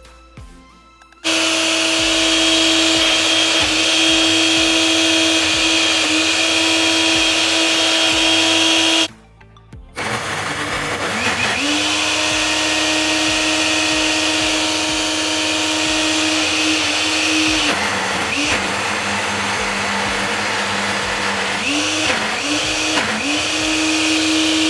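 Countertop personal blender motor running steadily at high speed, pureeing pumpkin. It cuts off about nine seconds in, then starts again to puree sweet potato, its pitch dropping briefly a few times as the load shifts.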